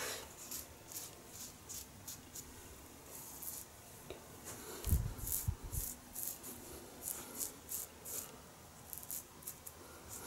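Vintage Gillette "New" long open-comb double-edge safety razor shaving lathered stubble on the neck: a run of short, faint, crisp scrapes as the blade cuts through the whiskers. A soft low bump about five seconds in.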